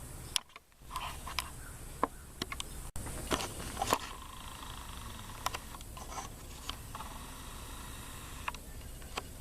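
Scattered light clicks and knocks, a dozen or so at uneven intervals, over a steady low hum, with the sound briefly dropping out about half a second in.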